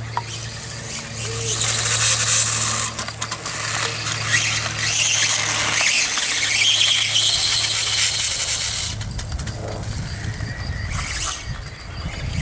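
Electric motor of a Reely RC dirtbike whining at a high pitch as it runs, loudest from about one and a half to nine seconds in, then dropping away.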